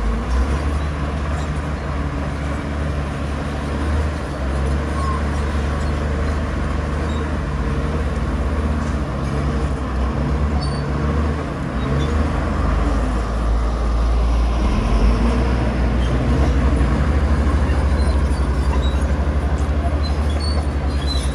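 Bulldozer's diesel engine running steadily with a low drone, getting a little louder in the second half.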